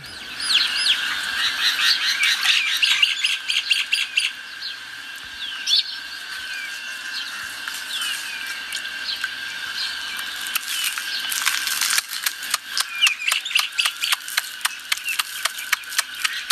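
Birds chirping and calling in quick, curving notes over a steady high-pitched drone. From about three-quarters of the way in, a run of sharp clicks comes at roughly three a second.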